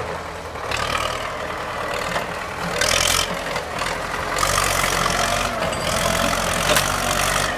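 MTZ-82 tractor's four-cylinder diesel engine running under load, its sound swelling louder in surges about three seconds in and again through the second half.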